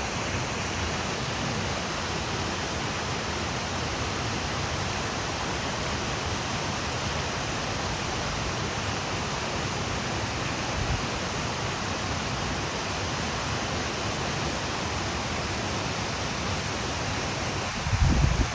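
Waterfall rushing steadily, its flow swollen with rainwater. A brief low rumble of wind on the microphone near the end.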